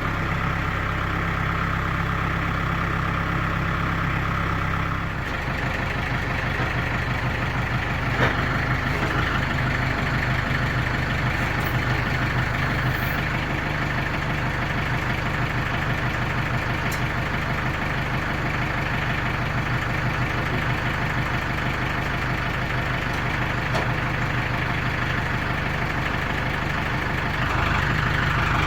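Engine idling steadily, its note shifting about five seconds in and again near the end.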